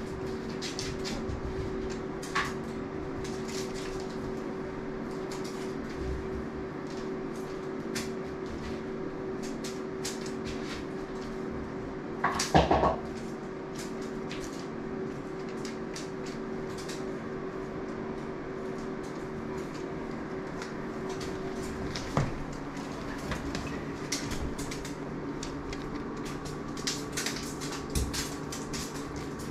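Steady machine hum whose pitch shifts a little about two-thirds of the way through, with scattered light clicks and knocks and one brief, louder clatter about twelve seconds in.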